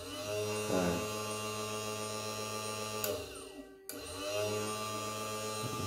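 Small electric motor of an automatic bobbin winder running steadily. It winds down about three seconds in, goes quiet briefly, and starts up again.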